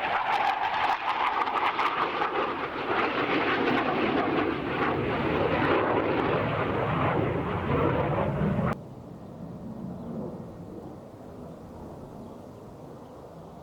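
Loud jet noise of a Panavia Tornado IDS's twin RB199 turbofan engines during a display pass, a dense roar with deep rumble. It cuts off abruptly about nine seconds in, leaving a faint rumble that fades away.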